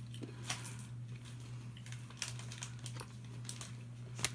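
Candy wrapper crinkling and rustling in the hands, with scattered small clicks and taps, over a steady low hum.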